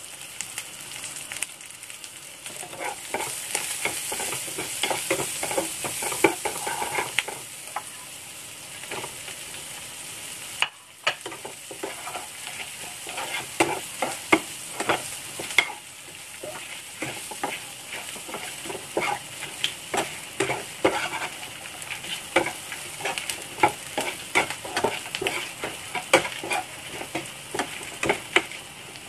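Garlic and shallots sizzling in hot oil in a frying pan, then fried mantis shrimp being tossed with a slotted spatula, which clacks and scrapes against the pan many times over a steady sizzle.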